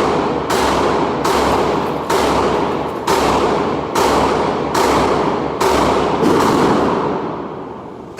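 Gunshots fired at a steady pace, about eight in a row roughly a second apart, each followed by a long echo that rings on into the next.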